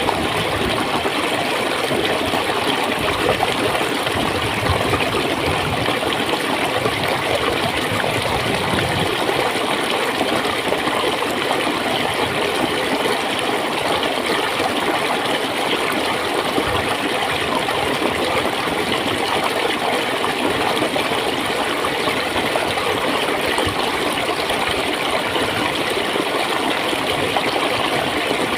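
Shallow stream of water flowing and gurgling steadily over rocks.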